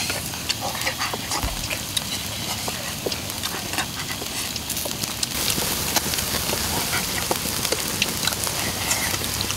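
Open wood fire crackling with scattered sharp pops under spit-roasting chickens, over a steady hiss of outdoor background noise.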